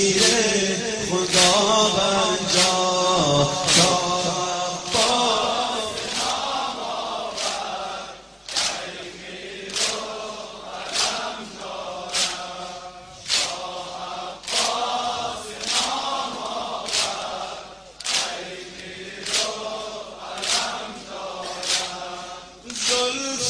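A group of men chanting a Muharram noha (lament) in unison, marked by a sharp slap about every 1.2 seconds, the beat of chest-beating (matam).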